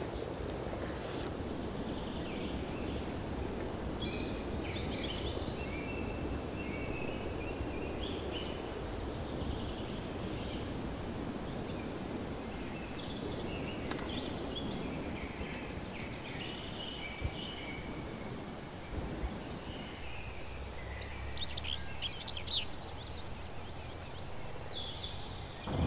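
Outdoor ambience: small birds chirping on and off over a steady low background noise, with a quicker flurry of high twittering about three-quarters of the way through.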